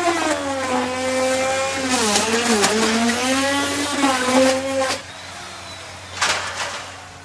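Chainsaw running under load while cutting wood, its engine pitch sagging and wavering in the cut. About five seconds in the engine drops back and quieter, with one short surge about a second later.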